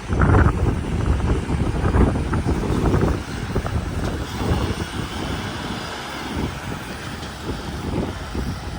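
Semi truck running close by with a heavy, low rumble that is loud for about three seconds and then eases to a quieter, steady road noise. No horn is sounding.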